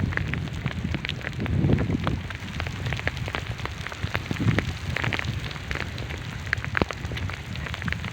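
Heavy rain pouring down, with a dense pattering of sharp drop impacts close by over a steady low rumble.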